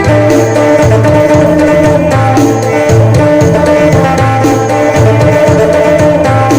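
Isan phin music: plucked phin lute over a steady, even drum and bass beat.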